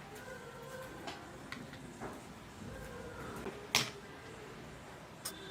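Small plastic toy kitchen pieces being handled, giving light scattered clicks and taps, with one sharper click a little before four seconds in.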